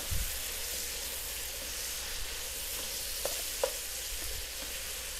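Sliced bell peppers and onions sizzling in hot oil in a pot while being stirred with a wooden spatula: a steady frying hiss with two light knocks a little past halfway.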